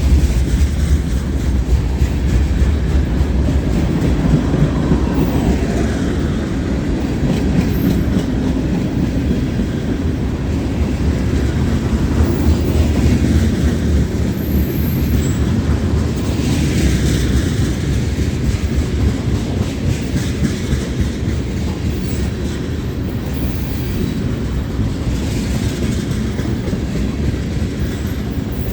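Freight cars of a long mixed freight train rolling past, a loud steady rumble with the clatter of wheels over the rails, and a few brief faint wheel squeals.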